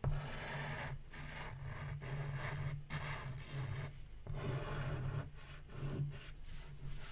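Black chalk pastel scraping across paper in irregular strokes, each a second or so long with short breaks between, as an outline is drawn.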